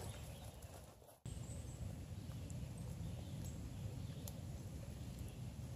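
Quiet outdoor ambience beside a flooded woodland trail: a steady low rumble with a few faint clicks, briefly cutting out about a second in.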